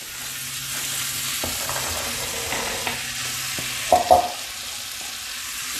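Sliced onions sizzling steadily in hot oil in an Afghan kazan. About four seconds in, a metal bowl knocks twice against the pot as diced carrots are tipped in.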